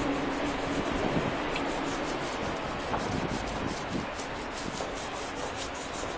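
Stiff-bristled hand brush scrubbed back and forth against a rough concrete wall in quick repeated strokes, scouring off spray paint.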